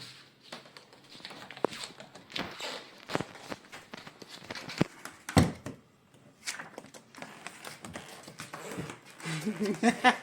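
Scattered light taps and clicks: a pet bird's beak and feet working at a paper book, with a few louder knocks along the way.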